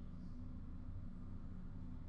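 Quiet room tone: a steady low hum with no distinct event.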